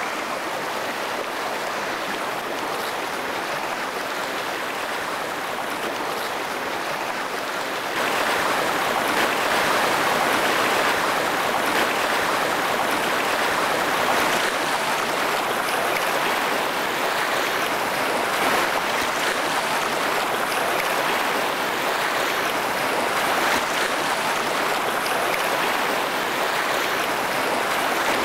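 Shallow rocky stream rushing steadily over stones, with splashes of someone wading through it; the water gets louder about eight seconds in.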